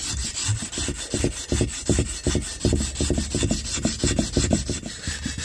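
180-grit sandpaper rubbed by hand over the lip of a cast alloy wheel in quick back-and-forth strokes, a steady scratchy rasp, as spots left by 100-grit sanding are smoothed out.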